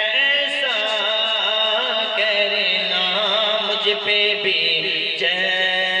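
Naat-style devotional background music: wordless vocal humming of a wavering, ornamented melody over a steady low drone.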